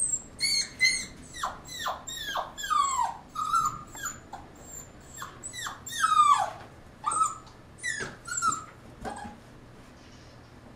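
Goldendoodle puppy whining and crying in a rapid run of short, high whimpers, most falling in pitch, fading out about nine seconds in: a young puppy distressed at being shut in a box.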